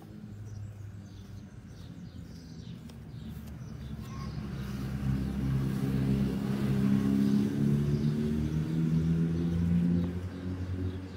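A motor vehicle's engine running as it passes by, building up over several seconds and easing off near the end.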